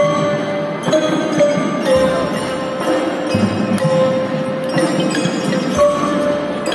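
Marching band music from a front ensemble of marimbas and xylophones, with bright ringing bell tones and jingles over long held notes. Deeper low notes come in a few times.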